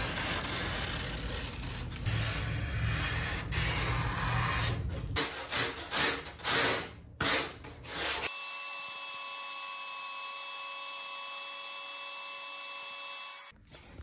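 Tools shaping a foam surfboard blank: steady rubbing and rasping against the foam, then several loud sweeping strokes. A steady whine follows from just past the halfway point and cuts off near the end.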